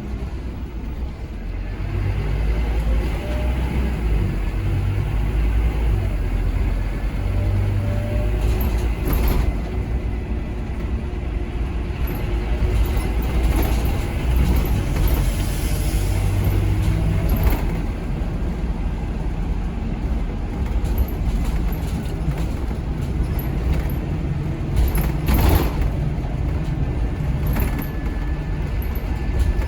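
Scania K230UB OmniLink bus with a ZF Ecomat automatic gearbox under way: the engine runs steadily, its low drone rising and falling as the bus pulls away, changes gear and slows, with a few short sharp knocks or rattles along the way.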